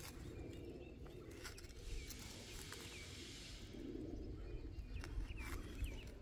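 Hand trowel stabbing and scraping into hard, dry, compacted soil, a few short scrapes and knocks. Small birds chirp repeatedly in the background.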